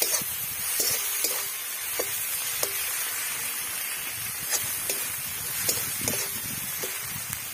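Onion, tomato and ginger-garlic paste sizzling in oil in a metal kadai, with a steel spatula scraping and tapping the pan at irregular intervals as the mix is stirred.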